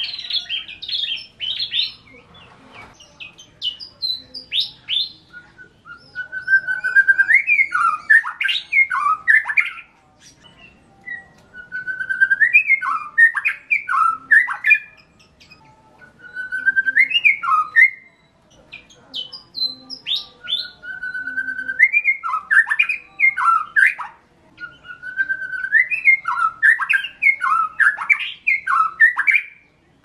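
White-rumped shama (murai batu) singing. It sings repeated phrases, each opening with a held whistle and breaking into quick rising and falling notes, with a new phrase every four to six seconds. The first few seconds hold quicker, higher notes.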